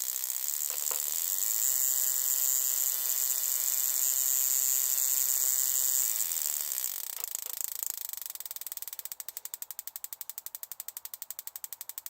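Spark plug tester firing the old plugs from a Honda CB750: first running fast with a steady whine, then from about seven seconds in a quick, even train of snapping sparks, about ten a second. One of the plugs misses sparks now and then, the sign of a fouled plug.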